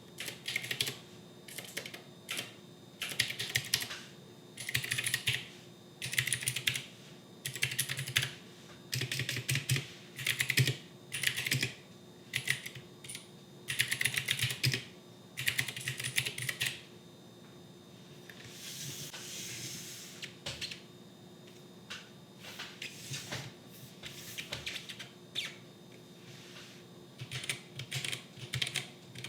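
Typing on a Royal Kludge RK68 wireless mechanical keyboard with stock, unlubed switches and stabilizers: rapid keystroke clacks in short bursts of about a second, with brief pauses between words.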